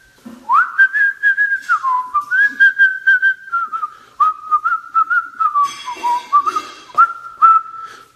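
A man whistling a tune in a clear, pure tone. The notes step up and down, with a quick upward slide about half a second in. There is a brief rush of breathy noise about six seconds in.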